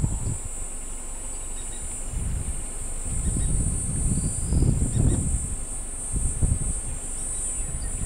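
A steady, high-pitched insect trill over low, gusting wind rumble on the microphone; the strongest gust comes about five seconds in.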